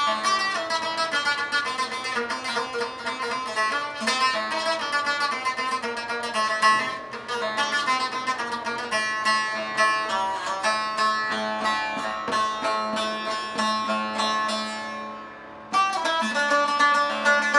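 Saz (long-necked lute) played solo: quick plucked notes over a steady low drone. The playing fades away near the end and starts up again a moment later.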